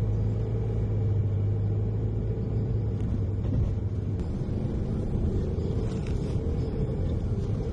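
Car engine and road rumble heard from inside the cabin while driving slowly: a steady low hum that fades about halfway through, leaving a rougher rumble.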